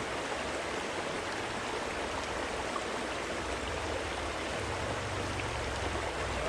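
Creek water running over shallows, a steady, even rush.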